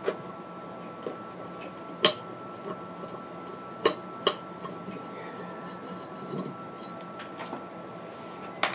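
Screwdriver working the handle screw out of a chrome bathtub faucet handle: a few sharp, separate metal clicks, the loudest about two and four seconds in, over a faint steady high-pitched hum.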